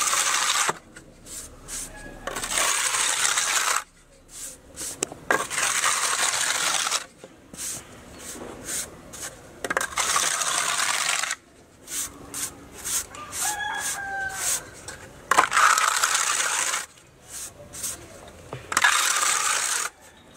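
Steel levelling blade scraping across a fresh coat of rustic texture putty on a wall, in about six long strokes of a second or two each with short pauses between.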